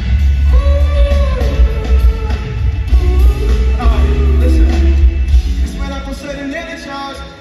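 Live pop-rock band with singing, played loud through an arena sound system. About five and a half seconds in, the bass and drums drop out and the music gets quieter.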